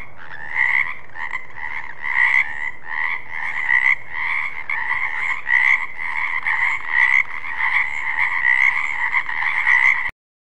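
Frogs croaking, a steady run of calls pulsing about twice a second; it cuts off suddenly near the end.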